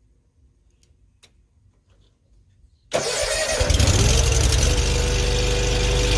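Zero-turn riding mower's 19-horsepower Kawasaki engine starting. A few faint clicks come first; then, about three seconds in, the engine catches suddenly, its pitch rises as it spins up, and it settles into a steady loud run.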